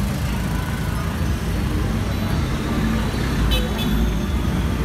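Steady low rumble of road traffic and motorbikes, with a couple of short light clicks about three and a half seconds in.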